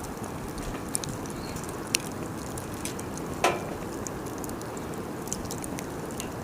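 Wood fire crackling: scattered sharp snaps and pops over a steady low rush of burning, with one louder pop about halfway through.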